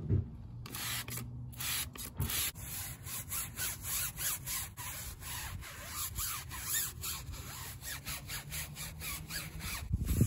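Stiff-bristled tyre brush scrubbing a wet car tyre sidewall in quick repeated strokes, a dense scratchy rasping, over low wind rumble on the microphone.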